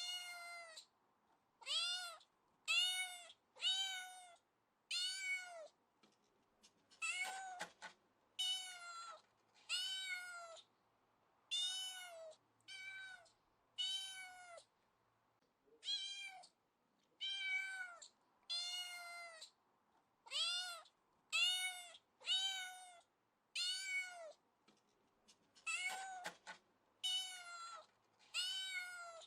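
Kitten meowing over and over: short high-pitched meows about one a second, each rising and then falling in pitch, with silent gaps between them.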